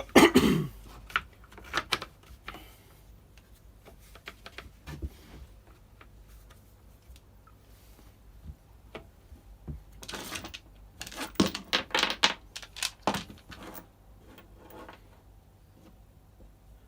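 Irregular clicks, knocks and clatter of hand tools and the brush cutter's plastic and metal parts being handled during reassembly. There is a loud burst right at the start and a busy cluster about ten to thirteen seconds in.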